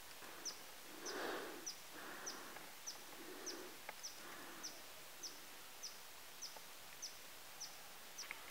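A small bird calling: one short, high chirp repeated evenly about every 0.6 seconds, some fourteen times. A soft rustle about a second in.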